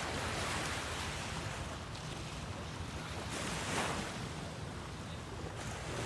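Small ocean waves breaking and washing up a sandy beach, the surf swelling about half a second in and again, loudest, a little before the four-second mark, over a steady low rumble.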